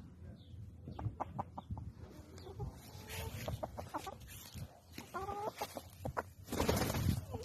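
White Silkie chicks peeping in short calls, with a few sharp taps about a second in and a loud burst of rustling noise near the end.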